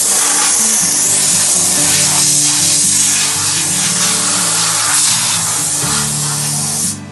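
Loud steady spraying hiss from a CNC machine at work, cutting in suddenly and stopping just before the end, over background music.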